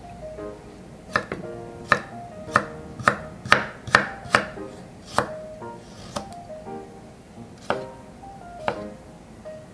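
Chef's knife slicing a carrot on a wooden cutting board: about eleven sharp knocks of the blade meeting the board, irregularly spaced and quickest around the middle.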